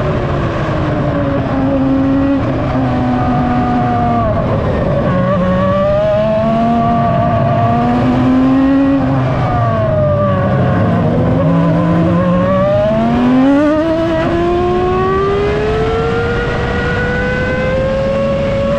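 The 3.0-litre BMW P83 V10 of a 2003 Williams FW25 Formula 1 car, heard onboard. The engine note falls in the first couple of seconds, stays low, then rises and falls through corners. Over the last several seconds it climbs steadily in pitch under acceleration.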